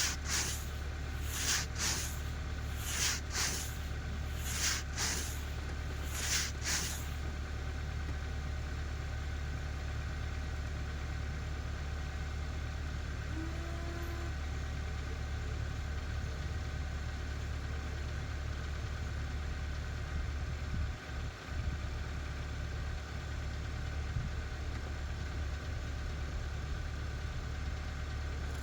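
Car engine idling steadily, with a rhythmic swishing about every second and a half over the first several seconds that then stops.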